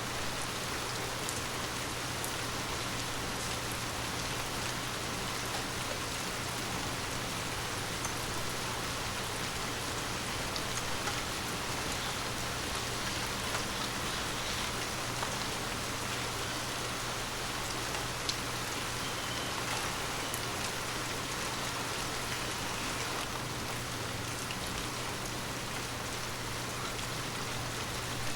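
Steady rain falling on forest leaves, a continuous patter with scattered individual drop ticks and a faint steady low hum underneath.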